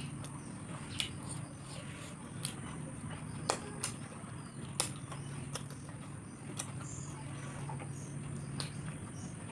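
Hand-eating sounds: scattered sharp clicks from chewing and from fingers working rice on a plate. Beneath them run a steady low hum and a faint, steady high-pitched whine.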